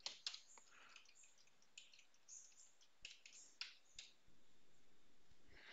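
Faint computer-keyboard keystrokes: irregular single taps and short runs of key presses with pauses between.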